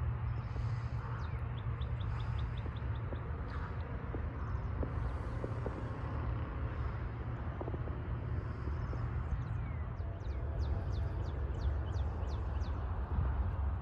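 Steady low rumble of distant road traffic, with birds chirping over it: a quick run of short notes a second or two in, and another series of sharp chirps near the end.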